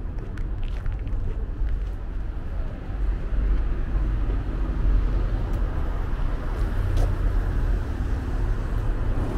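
Busy street traffic: a steady low rumble of passing vehicles that grows louder about three seconds in, with a few light clicks.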